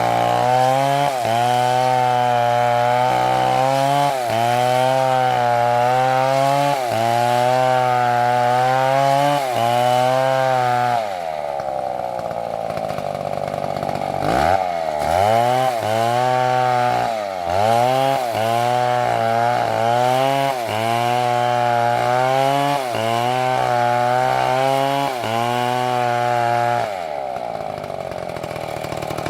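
Two-stroke chainsaw cutting into a tree trunk, its engine note dipping and recovering as it works under load. About eleven seconds in it runs free at high revs, drops briefly and goes back into the cut, and near the end it runs free at high revs again.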